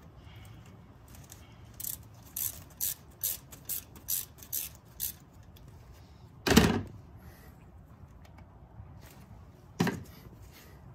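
A socket ratchet clicking in about eight short strokes over three seconds as the 10 mm bolt holding the transmission dipstick is worked loose. A single loud knock follows a little past halfway, and a lighter one near the end.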